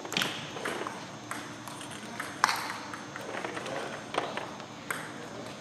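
A table tennis rally: the celluloid ball clicks sharply off the bats and the table, about one hit every half to one second, with the loudest hit about two and a half seconds in.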